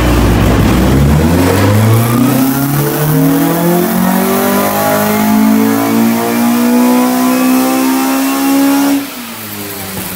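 Car engine pulling hard with its pitch climbing in one long steady rise, as in a full-throttle run on a rolling-road dyno, until the throttle closes about nine seconds in and the note drops away.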